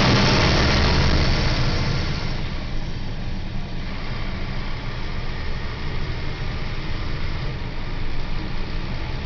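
Scania L94UB city bus's rear-mounted nine-litre five-cylinder diesel engine running: louder and hissier for the first two seconds, then easing to a steady lower run.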